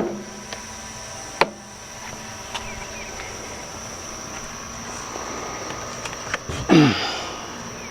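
Insects droning with a steady high-pitched buzz outdoors. Two sharp knocks come in the first second and a half, and a louder brief falling sound comes near the end.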